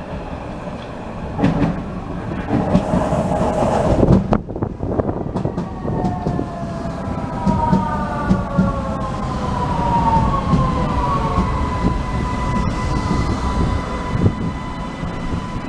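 Vienna U-Bahn Type V train pulling into the platform: its wheels rumble and knock over the rails as it passes, loudest about four seconds in. Then its electric traction drive whines in several tones that fall in pitch as it brakes, and settles into a single steady tone as the train comes to a stop.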